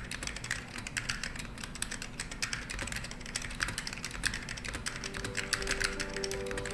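Rapid, continuous typing on a mechanical keyboard with vintage ALPS SKCL green switches and thick Apple AEK II keycaps, a dense run of sharp key clicks. Soft music tones join about five seconds in.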